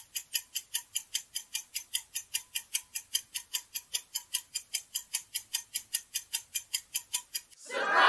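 Clock-ticking sound effect marking a quiz countdown timer, even ticks at about five a second. Near the end a much louder sound effect comes in as the answer is revealed.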